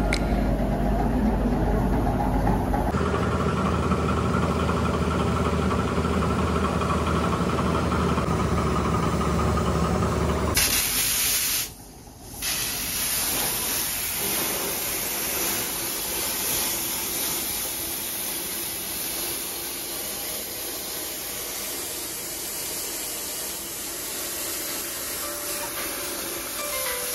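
Sandblasting gun firing sand with compressed air against a glass mirror, frosting its border: a loud, steady hiss. A low rumble sits under it for about the first ten seconds, and the sound briefly drops out about twelve seconds in before the hiss resumes.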